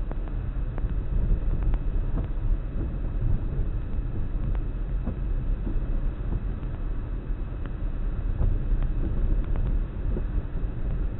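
Car driving: a steady low rumble of road and engine noise, with a few faint clicks scattered through it.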